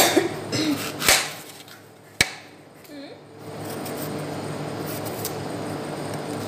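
Kitchen knife cutting through a green apple and knocking on a tray: three sharp knocks in the first two seconds or so, then a steady low background hum while the apple is peeled.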